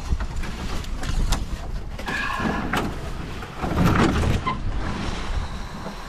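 Footsteps tramping through dry dead brush on a portage trail, with branches scraping past and twigs snapping, over a low rumble of movement on the microphone. The heaviest thumping comes about four seconds in.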